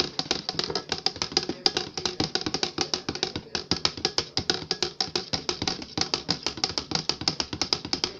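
A spoon stirring a drink in a plastic pitcher, clinking against the sides in a fast, even rhythm of about seven clicks a second.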